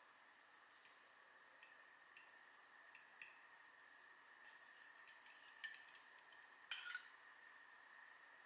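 Metal fork beating egg yolks in a ceramic bowl: a few single light clinks of the tines against the bowl, then a quicker run of clinking and scraping from about four and a half to seven seconds in, over a faint steady hiss.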